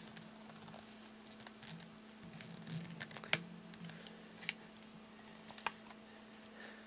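Plastic case of a Garmin Nuvi GPS being pried apart with fingernails: scattered small clicks and scratches, with a few sharper clicks in the second half.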